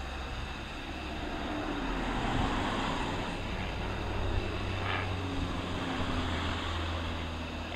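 Van's RV single-engine propeller aerobatic plane manoeuvring overhead: a steady engine and propeller drone that grows louder about two seconds in, then holds.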